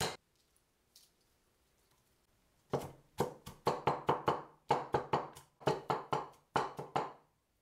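A steel Chinese cleaver chopping garlic on a wooden board: rapid sharp knocks of the blade, about four a second in short runs, starting about three seconds in.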